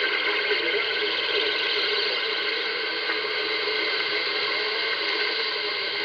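Radio receiver audio: steady static hiss with a faint wavering tone running through it, as from a weak signal.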